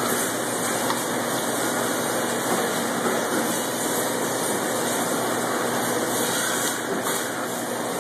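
Steady machinery noise and hiss of a seafood processing plant, even and unbroken throughout.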